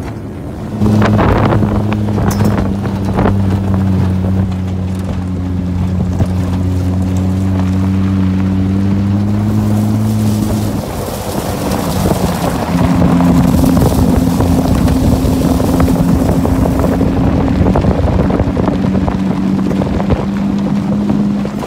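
An engine running steadily under heavy wind on the microphone. Its note changes about eleven seconds in.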